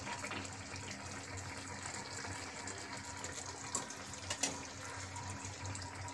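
Faint steady hiss and simmer of a pan of curry cooking on a gas burner, with two soft knocks a few seconds in as boiled eggs are set into the pan.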